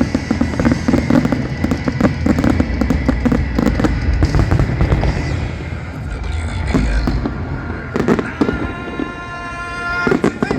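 Fireworks bursting in quick succession, a dense barrage of bangs and crackles, thinning after about six seconds to a few single loud bangs. Music plays underneath and comes through more clearly near the end.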